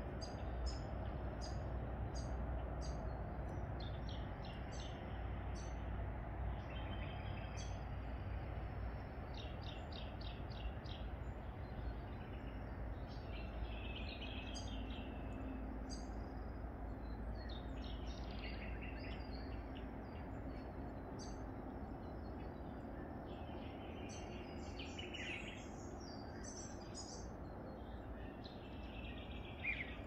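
Small birds chirping and twittering: many short, high chirps and quick trills, busiest near the end, over a steady low background rumble.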